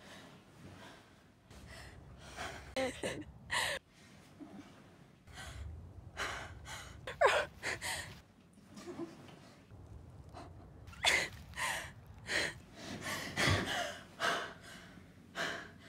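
A young woman gasping and breathing hard in short, sharp breaths, some of them voiced, coming closer together in the second half as she jolts upright in bed.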